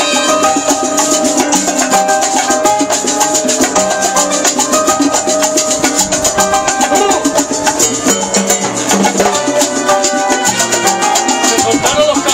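Live salsa band playing: conga drums and hand percussion keep a fast, even beat under held brass notes.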